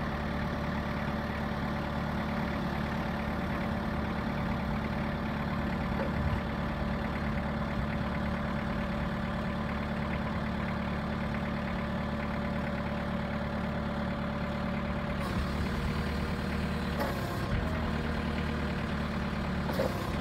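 Cat DP35N forklift's diesel engine running steadily at a low idle-like speed as the mast is lowered and the truck manoeuvres. The engine note shifts slightly about three-quarters of the way through.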